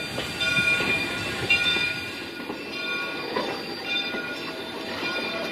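Passenger coaches rolling slowly past at close range, their wheels clattering over the rails with a thin on-and-off squeal of steel wheels on the track.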